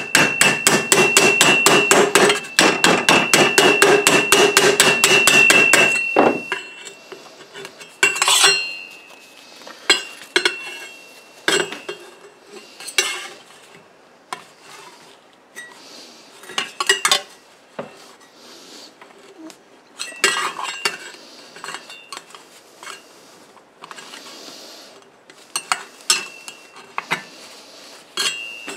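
Rapid hammer blows, about six or seven a second, on a thin steel sheet being formed into a cone for a two-stroke expansion chamber over a steel pipe held in a vise, the sheet ringing with a high tone. The hammering stops about six seconds in. What follows is scattered clinking, tapping and scraping as the sheet metal is bent by hand around the pipe, with one sharper ringing strike about eight seconds in.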